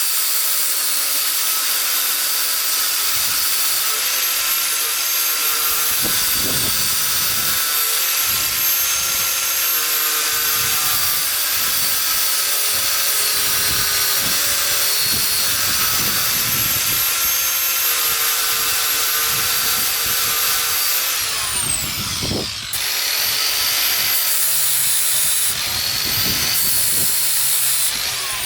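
Electric drill running steadily at high speed while working out a rusted, seized exhaust screw. About three-quarters of the way through it spins down with a falling whine, then starts up again and runs less evenly.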